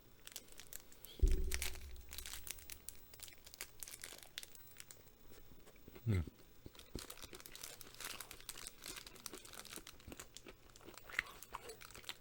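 Candy-bar wrapper crinkling and rustling in irregular small clicks, with a dull thump about a second in and a short falling vocal sound near the middle.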